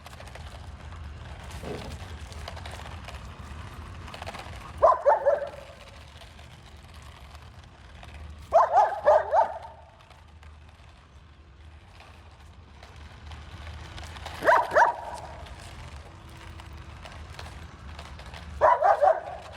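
A puppy barking in four quick volleys of three or four sharp barks each, several seconds apart.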